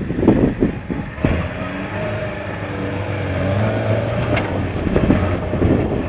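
Toyota Hilux pickup's engine pulling under load as the truck climbs a steep rocky step; from about a second in the engine note rises a little and then holds steady.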